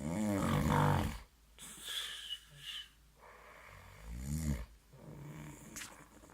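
A man snoring in his sleep: two snores with a wavering pitch, one in the first second and another about four seconds in, with softer breathing between them.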